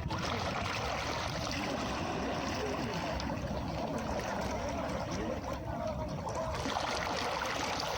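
Calm sea waves washing steadily on a beach, with faint voices in the distance.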